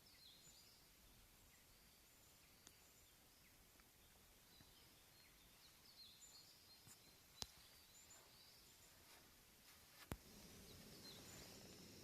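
Faint outdoor quiet with scattered short bird chirps. Two sharp clicks sound, about seven and a half and ten seconds in, and after the second a faint steady hiss sets in.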